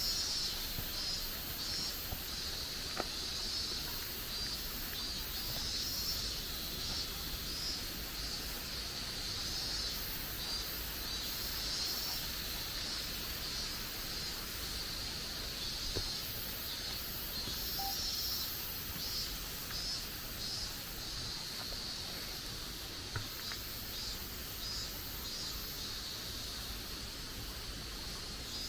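Forest ambience: a high-pitched chorus of insect calls pulsing several times a second, over a low rumble of wind on the microphone.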